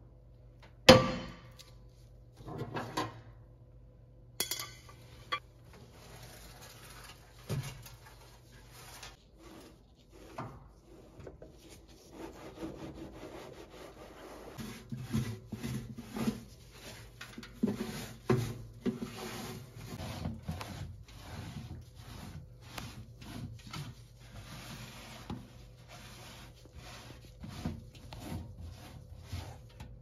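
Rubbing and wiping strokes of a gloved hand scrubbing the inside of a stainless-steel microwave, in a quick, uneven run. About a second in there is a sharp knock, followed by a few clunks over the next few seconds, as the glass turntable plate is handled.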